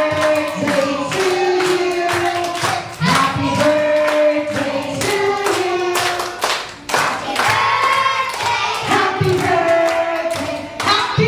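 A group of voices singing together, with many hand claps.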